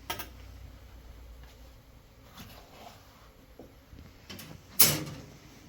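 A few knocks and clatters as of household objects being handled: one sharp knock right at the start, a couple of faint ones later, and one much louder knock about five seconds in.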